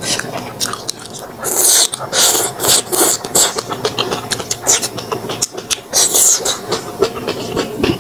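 Close-miked mukbang eating sounds: rapid wet chewing and lip smacks, with several short slurps of rice noodles.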